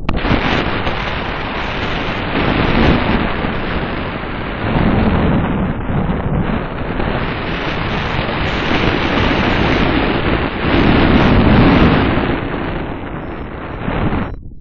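Loud wind rushing and buffeting over the microphone of a harness-mounted camera in paraglider flight, swelling and easing in gusts. It cuts in suddenly and cuts out suddenly near the end.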